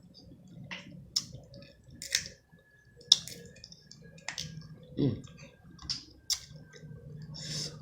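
Close-miked eating of seafood boil crab: a series of irregular wet mouth clicks, smacks and sucks, with a brief low hum from the eater about five seconds in.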